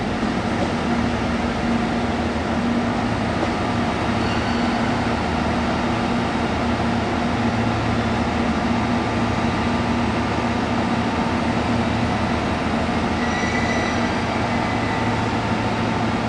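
Steady low drone of diesel railcars idling in a station, with a constant hum. A train moves out slowly past the platform at the start.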